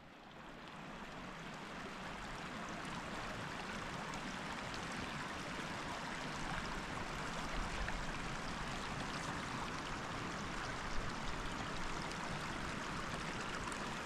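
The shallow, rocky headwaters creek of the Colorado River, running steadily over stones. It fades in over the first two seconds.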